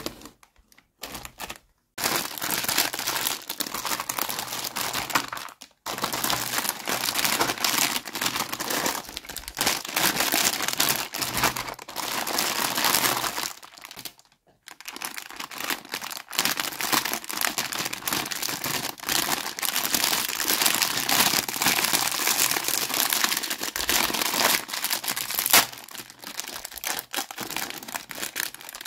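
Clear plastic packaging bags crinkling as hands handle and unwrap pink plastic toy kitchen pieces: a dense crackle, broken by short pauses about 6 and 14 seconds in.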